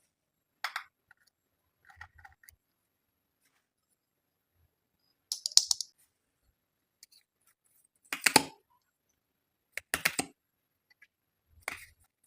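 Slime being handled, making six short crackling, clicking bursts a couple of seconds apart; the two in the middle are the loudest.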